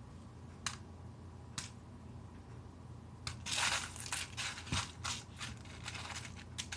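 Tortilla chips crunching and rustling as hands toss them with cheese pieces in a bowl: a few separate clicks at first, then a busy run of crackling from about halfway through.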